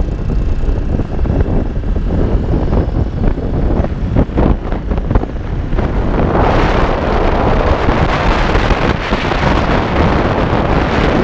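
Wind buffeting the microphone of a camera riding on a moving motorcycle, over the low rumble of the motorcycle. The wind noise grows louder and brighter about six seconds in.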